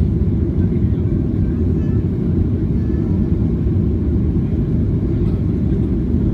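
Steady, low rumble of jet engines and airflow heard inside an airliner cabin in flight.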